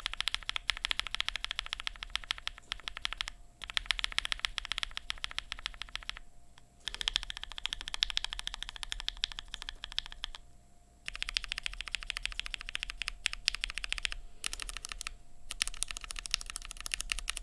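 Fast typing on a mechanical keyboard with linear switches, a Vega board with an aluminum plate and GMK keycaps. The clicks come in five runs of about three seconds each, separated by brief pauses.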